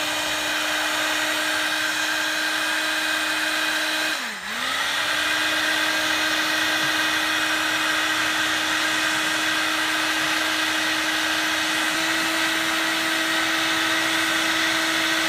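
Heat gun blowing hot air onto heat-shrink tubing, its fan motor running with a steady hum. About four seconds in the hum briefly drops in pitch and comes back up, and about twelve seconds in it steps slightly higher.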